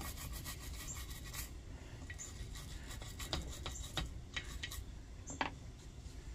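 Small nylon-bristle brush scrubbing the painted metal case of a Coleman 508 camp stove: a faint run of short scratchy strokes, with a few sharper ticks in the second half, the loudest about five seconds in.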